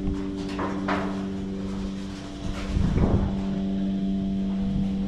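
A machine running with a steady hum, with a clank about a second in and a louder knock about three seconds in.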